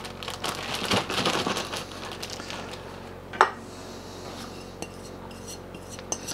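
A plastic food bag rustling and crinkling as raw pork strips and seasoning are worked into it, busiest in the first two seconds. About three and a half seconds in, a single sharp knock with a brief ring stands out, with a few small clicks after it.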